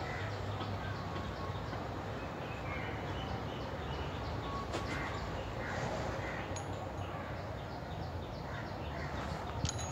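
Steady low background noise with faint bird calls repeating now and then, and a few faint clicks.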